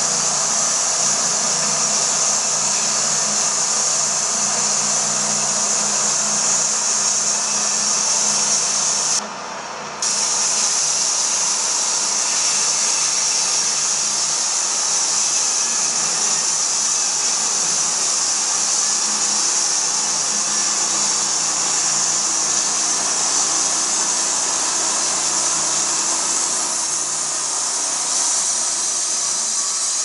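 Portable band sawmill running under load, its gas engine droning steadily while the band blade cuts lengthwise through a large log with a loud, steady hiss. The hiss drops out briefly about nine seconds in.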